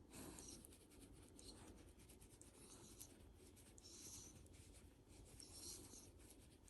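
Faint, irregular scratching and rubbing: many small scrapes and ticks.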